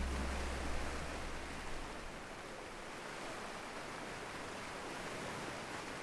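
Steady rush of ocean surf, with the last low notes of an acoustic song dying away in the first couple of seconds.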